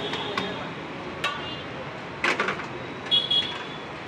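Steel spatulas clinking and scraping on a large flat tawa griddle: several sharp metallic strikes, bunched in two quick clusters in the second half, some with a brief ringing tone, over a steady background hiss.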